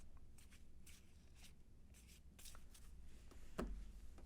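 Baseball cards being flipped through by hand: a series of soft, short swishes as card slides over card, with a louder knock about three and a half seconds in.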